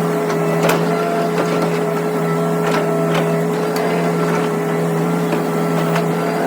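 Hitachi excavator's diesel engine running at a steady speed, with scattered short clicks and knocks over it.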